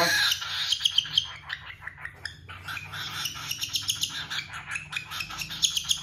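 Cockatiel eating from a feeding syringe, making a rapid run of short chirps and clicks, the begging and gulping noises of a hungry bird being hand-fed.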